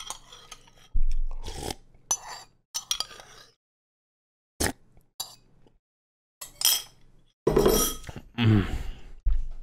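Irregular series of sharp metallic clinks and clanks, some with a deep boom underneath, with a quiet stretch in the middle: sound-effect hits rather than a steady drum beat.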